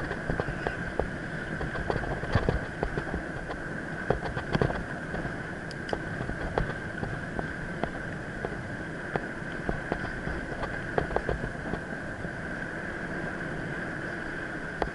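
Mountain bike riding over a dirt forest trail: steady rolling noise from the tyres, with many sharp rattling clicks and knocks from the bike jolting over bumps, thicker in the first few seconds.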